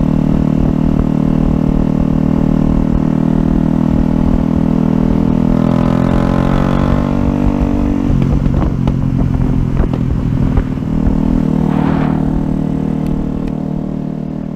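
Yamaha YZF-R125's single-cylinder four-stroke engine running at steady road revs, heard from on board the bike. About eight seconds in the engine note drops, then rises again about three seconds later.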